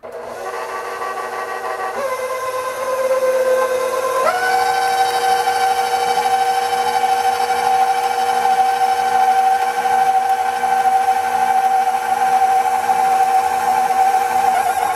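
KitchenAid Professional 600 bowl-lift stand mixer starting up and running under the load of cookie dough as dry flour is worked in. Its motor whine shifts pitch about two seconds in, rises sharply about four seconds in, then holds steady.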